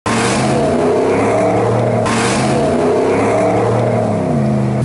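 Ram 1500 pickup's engine revving under throttle, its pitch rising and falling, as the truck accelerates with wheels spinning on snow, over a steady hiss of spinning tyres and snow spray that eases after about two seconds.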